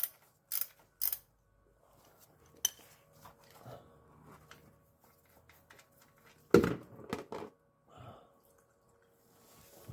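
Metal hand tools clinking and knocking as a 14 mm socket and wrench are handled: three sharp clicks in the first second, scattered light ticks, then a louder metallic knock about six and a half seconds in followed by a few smaller ones.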